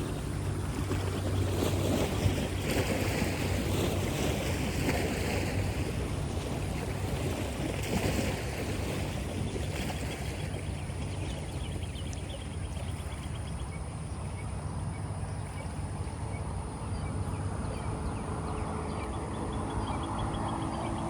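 A steady engine drone: a low, even hum with a whooshing sweep over it that slowly shifts in pitch.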